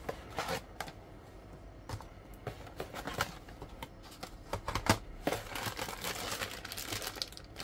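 Cardboard box and plastic-packaged cables being handled: scattered rustling, crinkling and light knocks as blister packs of audio cables are lifted out and the box is turned over, with a sharper click about five seconds in.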